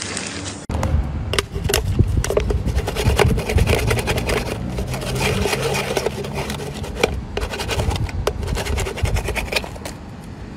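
Aluminium beer cans being handled: metal rubbing and scraping, with many sharp irregular clicks as the cans knock together.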